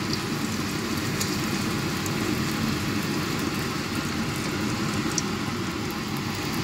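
Banana fritter sizzling steadily in hot oil in a frying pan, with a few light clicks from metal tongs turning it. A steady low rumble runs underneath.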